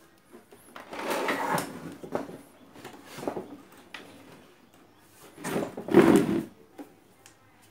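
Plastic cabinet of a small CRT television being handled and shifted, giving three scraping, rubbing noises. The loudest comes about six seconds in.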